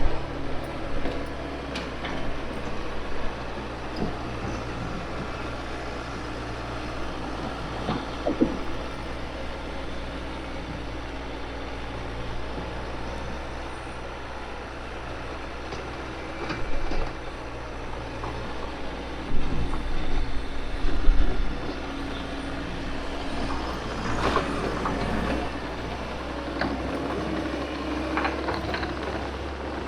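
Excavator's diesel engine running steadily, with scattered knocks and clanks of the machine at work and a louder burst of clattering about twenty seconds in.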